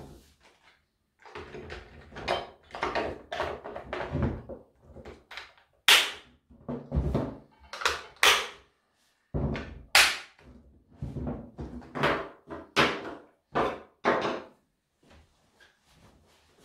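Handling noise as the plastic top cover of a Husqvarna chainsaw is fitted back over the cleaned cylinder: irregular plastic knocks and rattles with several sharp clicks as it snaps into place. The saw is then shifted and set down on the wooden tabletop.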